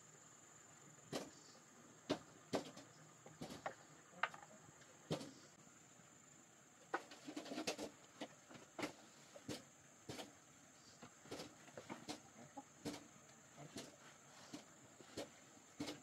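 Chickens clucking in short, irregular bursts, most busily about seven to eight seconds in, over a steady, faint, high-pitched insect buzz.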